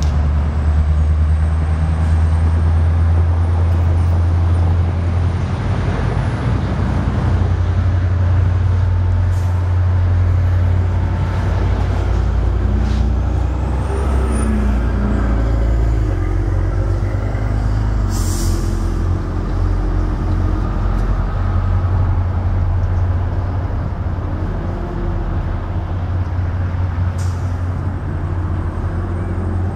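Commuter train's diesel locomotive running under power as the train pulls out of the station, a loud steady low engine drone, with a short hiss of air about two-thirds of the way through.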